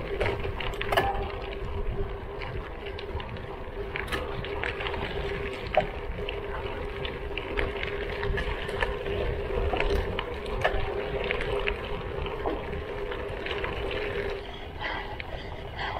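Lauf Anywhere gravel bike rolling on a loose gravel road: tyres crunching, with small stones clicking and a low rumble. A steady hum runs under it and stops near the end.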